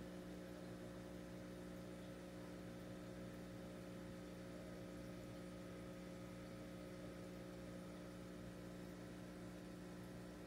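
Faint, steady electrical hum of running aquarium equipment, such as a filter or pump motor. It is made of several fixed tones and does not change.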